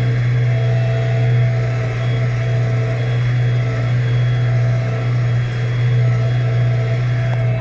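New Holland T5.95 tractor's four-cylinder diesel engine running steadily under load while pulling a plough, heard inside the cab as a constant low drone with a fainter steady whine above it.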